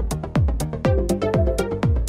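Electronic dance background music with a steady kick drum beat, hi-hats and a short repeating melody.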